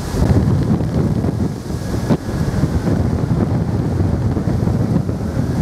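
Strong wind buffeting the microphone as a loud, steady low rumble, with the jet engines of a Boeing 747-400 on final approach running underneath it. There is one brief sharp crack about two seconds in.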